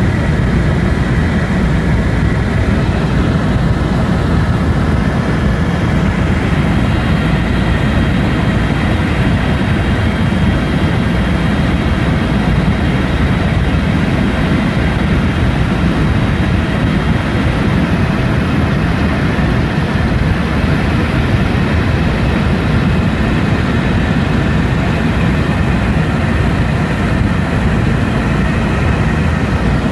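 Helicopter in flight: loud, steady engine and rotor noise with no change in pitch.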